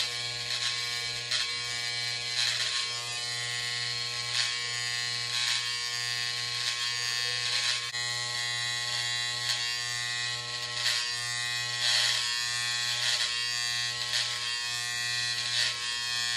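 Electric hair trimmer running with a steady buzzing hum while its blade edges the hairline and sideburn. Short scratchy strokes come through here and there as the blade cuts against the hair.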